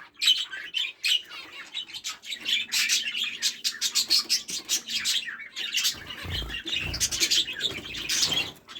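A flock of small cage birds (finches, canaries and budgies) chirping and twittering busily in many quick overlapping calls. A couple of low bumps come about two-thirds of the way through.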